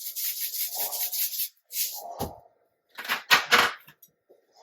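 Fast, rhythmic rasping from a seasoning container as salt or pepper is dispensed over a raw salmon fillet, about eight strokes a second, in a run that stops about a second and a half in. A low thump follows, then two louder knocks a little after three seconds in.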